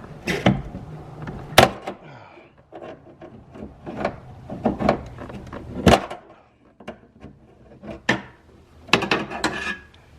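Irregular knocks, clicks and scraping of broken plastic window glide pieces being worked loose by hand from the window track inside a 1996 Chevrolet Impala SS door, with a quick cluster of knocks near the end.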